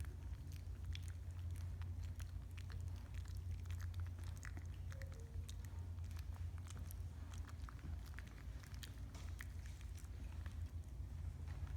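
Golden retriever puppies chewing and moving about, with many small scattered clicks and ticks over a steady low hum, and a faint brief squeak about five seconds in.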